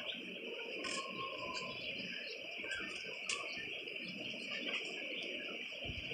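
A steady, high-pitched insect chorus, with a low rustling rumble underneath and a faint click about three seconds in.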